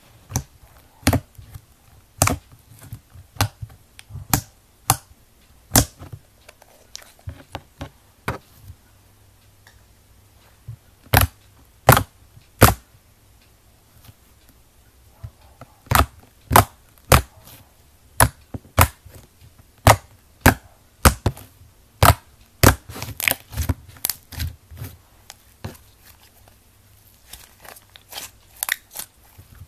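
Slime poked, squeezed and stretched by hand, giving a string of sharp, irregular pops and clicks as trapped air bursts. They come in runs, sometimes several in quick succession, with short pauses between.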